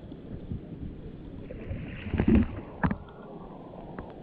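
Sea water sloshing and lapping around surfboards and swimmers, with a low rumble that gets louder for a moment about two seconds in, followed by a single sharp click.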